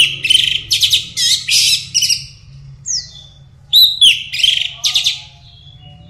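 Orange-headed thrush (anis merah) singing loud, rapid, varied song phrases in two bursts, with a single falling whistle between them.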